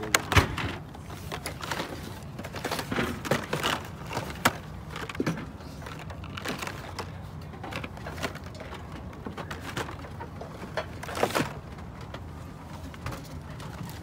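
Irregular clicks, taps and rustling of small objects being handled, over a steady low background hum.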